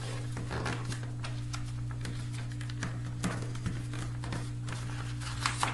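Lightweight paper being folded and creased by hand into a paper helicopter's point: irregular light crinkles, rustles and small taps, over a steady low hum.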